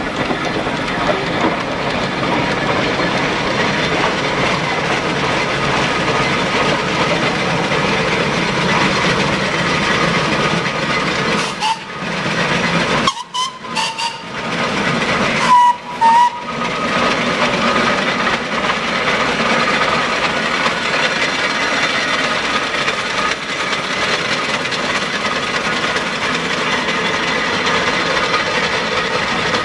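Steam traction engines and steam road rollers running along a road, a steady hissing, clanking mechanical noise of steam engines at work, with a short whistle toot a little past halfway. The sound breaks off briefly a couple of times near the middle.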